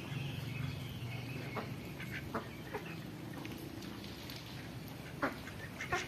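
Flock of domestic ducks quacking now and then while swimming, short single calls scattered through, the loudest near the end, over a low steady hum.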